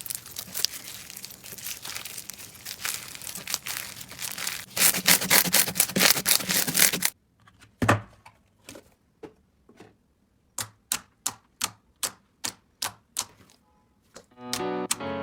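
Slime being squeezed and worked by hand: a dense crackling and popping that grows louder, then cuts off suddenly about halfway through. A run of separate sharp clicking pops follows, about two a second, and music comes in near the end.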